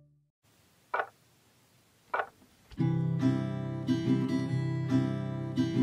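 Acoustic guitar music, repeated chords, that begins about three seconds in. Before it there is near silence, broken by two short soft sounds about a second apart.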